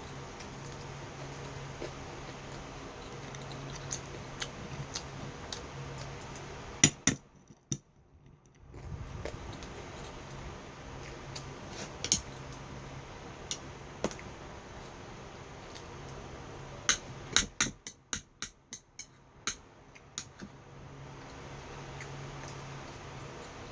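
Scattered light clicks and taps of utensils against dishes over a steady low hum, with a quick run of clicks about two-thirds of the way through.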